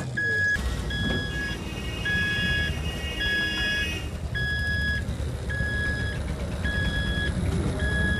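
Electronic vehicle beeper sounding a repeating beep about once a second, each beep about half a second long, over the low rumble of street traffic and engines.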